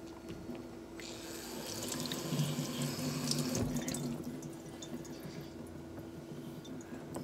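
Kitchen faucet running water onto a 5K Shapton whetstone set over a steel sink. It starts about a second in and runs for about three seconds before shutting off.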